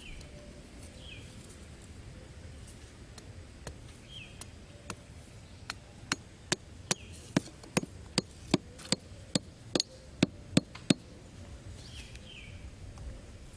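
A run of about fifteen sharp knocks at roughly three a second, starting a little before halfway and stopping about two and a half seconds before the end, like wood being chopped or struck. Faint short falling chirps come now and then before and after.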